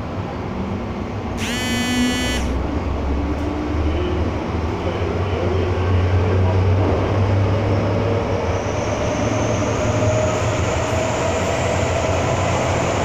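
Hong Kong MTR Island Line M-Train running, heard from inside the passenger car: a steady low rumble of wheels and running gear. A brief high-pitched sound comes about a second and a half in, and a faint whine rises gently in pitch in the second half.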